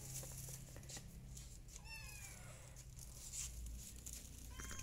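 A kitten mewing twice: a thin high mew that falls in pitch about two seconds in, and a shorter mew near the end.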